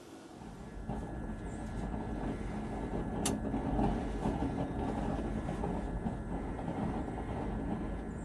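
Low, steady rumble of a heavy vehicle passing at a distance, building up over the first second, with one sharp click about three seconds in.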